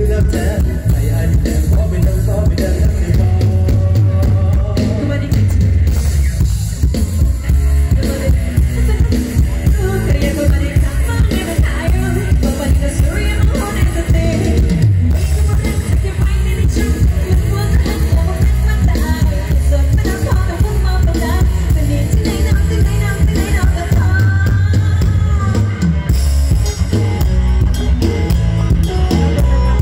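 Live Isan mor lam band music played loud through a big outdoor PA: a singer over drum kit, electric bass and guitar, with a heavy, booming low end.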